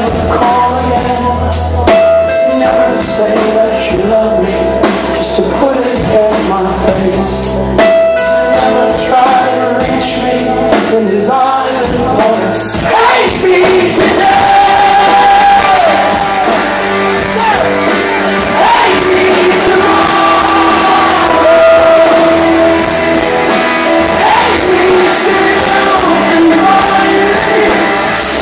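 Live rock band playing in a hall: keyboards, drums, acoustic guitar and bass, recorded loud from within the crowd. Singing comes through strongly in the second half.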